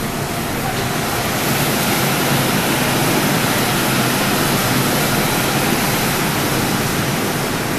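Steady rushing noise of a subway train at an underground station platform, growing a little louder over the first few seconds.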